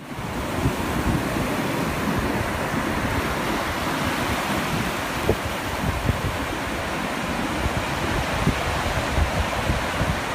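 Surf washing up onto a sandy beach: a steady rush of breaking water that fades in at the start.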